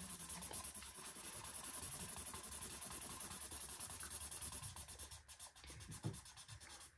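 Felt-tip pen colouring in on a paper page, faint quick back-and-forth scribbling strokes, a few a second, breaking into short pauses near the end.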